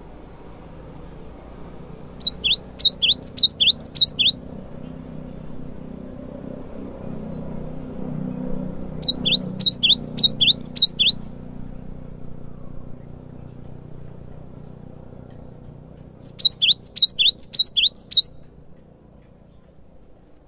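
Cinereous tit (gelatik batu) singing: three phrases of about two seconds each, every phrase a fast run of repeated high, falling whistled notes, about four or five a second, with pauses of several seconds between phrases.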